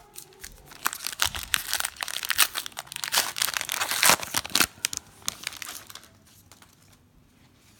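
Foil trading-card pack wrapper crinkling and tearing as it is pulled open by hand: a dense run of sharp crackles lasting about four seconds, then dying away.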